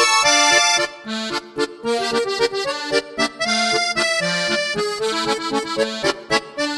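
Accordion playing a waltz in D minor as background music.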